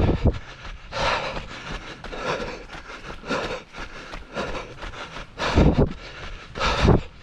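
Wind buffeting the microphone in heavy low gusts, about a second in and twice near the end, over the steady patter of running footsteps and breathing on a dirt trail.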